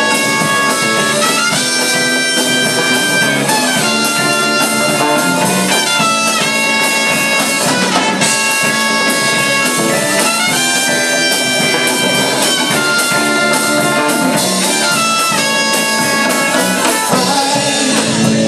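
Rock band playing live, an instrumental passage with no singing: a lead line of long held notes that step up and down in pitch over the full band.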